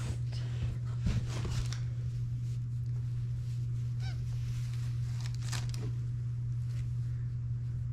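A steady low hum throughout, with intermittent rustling and handling noises as secondhand clothes are taken out of a box.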